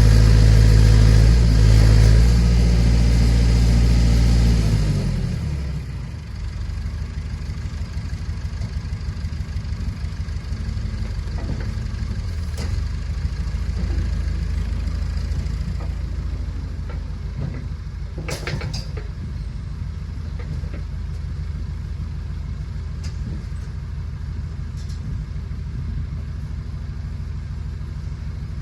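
Massey Ferguson tractor engine running high, as when working the backhoe hydraulics, then dropping to a steady idle about five seconds in. A few sharp metallic knocks come about two-thirds of the way through.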